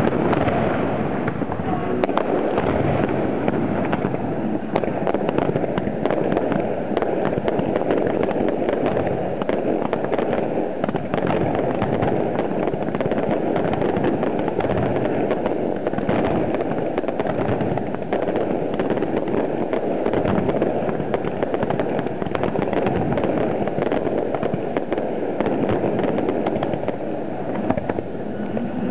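Aerial firework shells firing and bursting in a dense, unbroken barrage of bangs and crackling, heard close up from the launch site.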